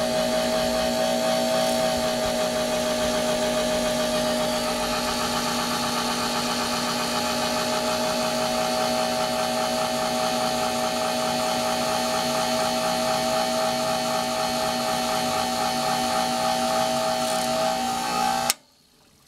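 Wax-cylinder shaving machine running steadily as its cutter takes a final light cleanup pass that erases a wax cylinder record, together with a shop vac drawing up the shavings: a steady motor hum and whine over a hiss. Both stop abruptly just before the end.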